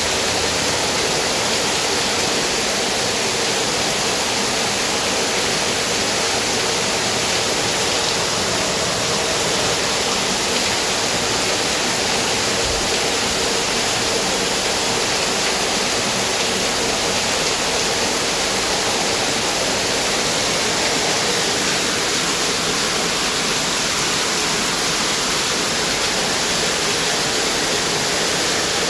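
Waterfall rushing steadily, an even hiss of falling water that does not change.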